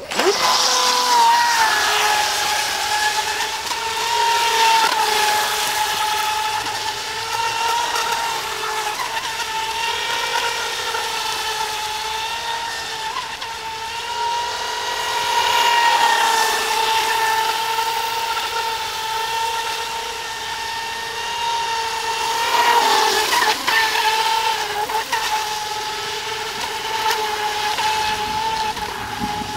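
Atomik Barbwire 17-inch RC speed boat's brushless electric motor at high throttle: a steady high-pitched whine that cuts in suddenly at the start and wavers slightly in pitch a couple of times.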